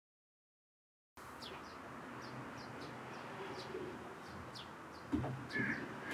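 Silence for about the first second, then birds chirping outdoors: many short, high, downward-sweeping chirps, about two or three a second, over a steady background, with lower calls in the middle and near the end. A single thump about five seconds in.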